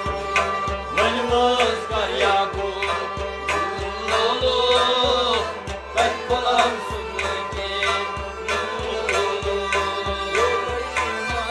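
Live singing with a drum keeping a steady beat, about two strokes a second.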